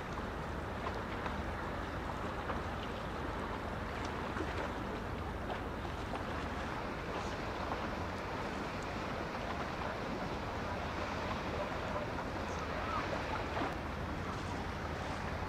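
Steady harbour ambience: wind and water noise over a low, even engine drone, with no clear single event.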